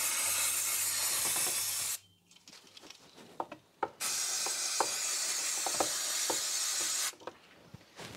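Aerosol can of brake cleaner spraying in two long bursts: the first stops about two seconds in, the second runs from about four seconds to seven, with a few faint clicks and taps in between.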